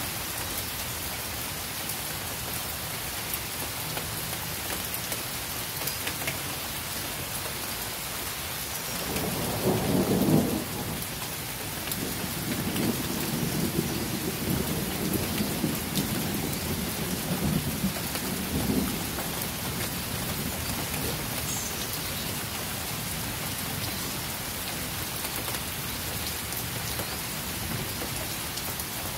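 Steady rain falling throughout. About nine seconds in comes a loud clap of thunder, and it rolls on as rumbling thunder for nearly ten seconds before fading back under the rain.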